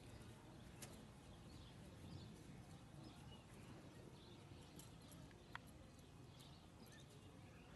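Near silence: faint outdoor ambience with the soft hoofbeats of a two-year-old gelding walking on grass, and a couple of faint sharp clicks.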